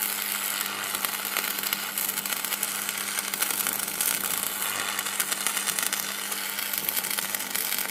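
Electricity sound effect: a steady electric hum under dense, continuous crackling.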